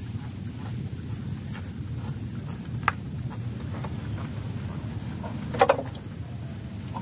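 A steady low drone, with a sharp click about three seconds in and a louder short clatter of knocks a little before the end, as fishing tackle is handled at the rod rack.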